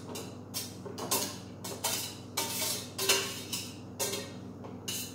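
A kitchen utensil clinking and scraping against dishes in a string of short strokes, about two a second, over a faint steady low hum.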